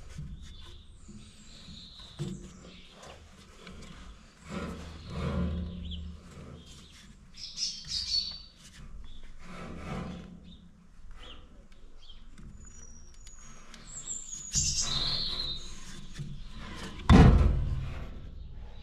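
Rubber V-belts being worked by hand onto a grain dryer's drive pulley: scattered scuffs and knocks, with one loud knock near the end. Birds chirp briefly in the background.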